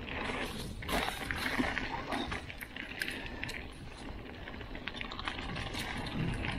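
Mountain bike rolling fast down a dirt singletrack: tyres on dirt and leaves, with frequent clicks and rattles from the bike over the rough ground, and wind rumbling on the microphone.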